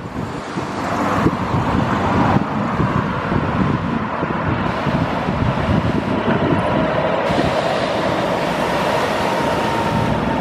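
Alfa Localo city bus on a Volvo B7RLE chassis driving past, its diesel engine running steadily. A faint whine rises in pitch in the second half as the bus pulls away.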